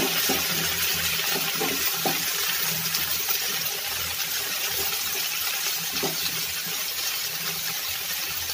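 Chopped vegetables sizzling with a steady hiss in hot mustard oil in a frying pan while a wooden spatula stirs them, with a few light scrapes of the spatula.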